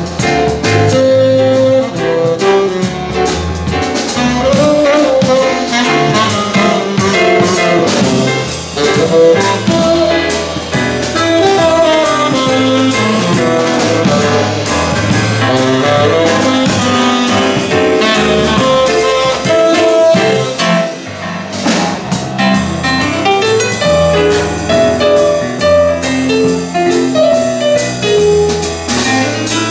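Live jazz trio: tenor saxophone playing the lead line over a drum kit and keyboard.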